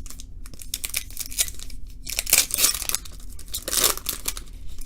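A trading-card pack wrapper being torn open and crinkled by hand, in several rustling bursts, the loudest about two seconds in and another near four seconds.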